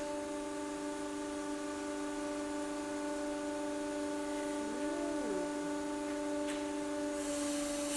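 Hydraulic press pump running under pressure with a steady, even hum.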